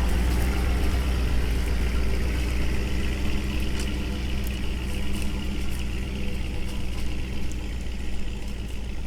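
Pickup truck engine running, a steady low hum that eases off slightly near the end.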